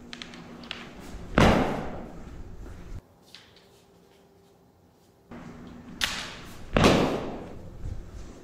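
Kendo shinai demonstration: light clacks of the bamboo swords pressing against each other, then a loud strike with an echoing tail. This happens twice, about five seconds apart, in a large, reverberant hall.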